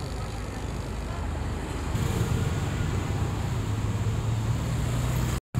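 Street traffic ambience with motorbike engines running, an engine hum growing stronger about two seconds in. The sound drops out briefly near the end.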